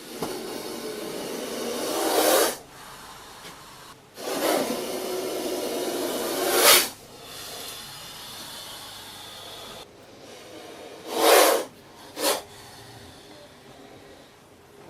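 Snake hissing: long hisses that swell to a sharp, loud peak about every four to five seconds, with a softer hiss running between them. Near the end come two shorter loud hisses about a second apart.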